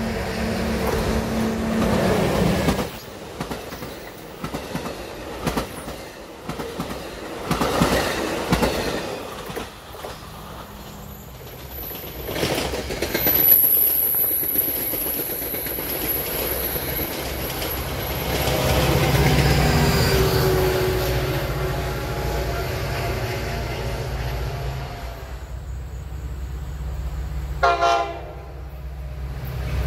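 Commuter passenger train passing close by on the tracks, its wheels clattering over the rails, with a thin, high wheel squeal about halfway through. Near the end a second train sounds a short horn blast as it approaches.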